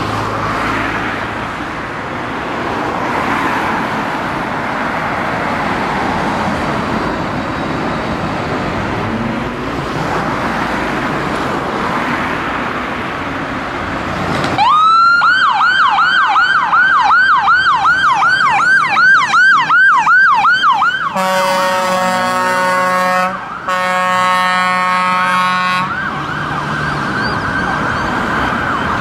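A Volvo FL fire engine's diesel engine runs as it pulls out. About fourteen seconds in its siren starts with a rise into a fast yelp, sweeping up and down several times a second. Two long blasts of the air horn cut in, with a short break between them, and then the siren goes on with a steady tone.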